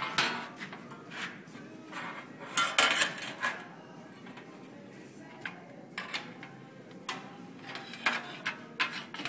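Metal car parts clanking and knocking together as they are handled and test-fitted, with irregular knocks and a cluster of louder clanks about three seconds in.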